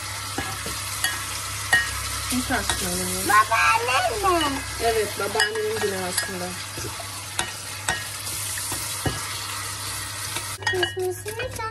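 Kitchen tap running, the water splashing onto a stainless steel colander and over hands being rinsed under it; the tap is shut off near the end.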